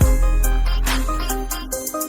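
Background music with a heavy bass line, stepping melodic notes and a regular beat.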